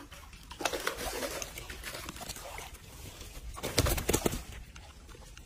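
A carp thrashing and splashing in a mesh landing net as it is scooped from the water and lifted, in irregular bursts, with the loudest flurry of splashes and slaps about four seconds in.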